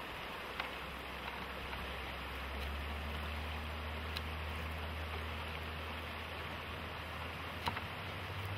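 River water flowing steadily, an even rushing noise, with a low steady hum underneath and a couple of faint clicks.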